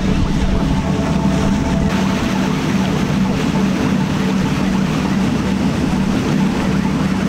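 A charter fishing boat running under way: a steady low engine hum under the continuous rush of its bow wave and wash along the hull.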